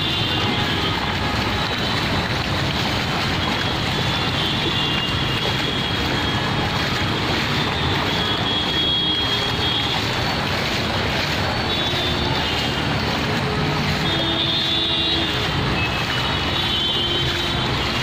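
Steady noise of traffic on a flooded road mixed with the splashing of feet wading through shallow floodwater, with a few faint short tones through it.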